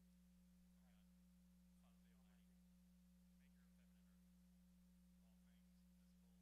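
Near silence: a steady low hum, with faint distant voices a few times.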